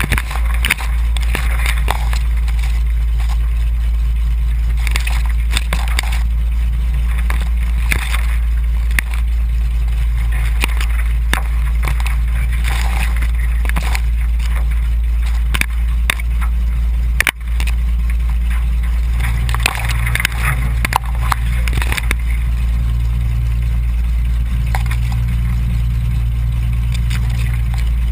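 Floatplane's engine running steadily at taxi power as a low drone, with reeds repeatedly brushing and scraping against the camera and floats. The drone's tone shifts slightly about two-thirds of the way in.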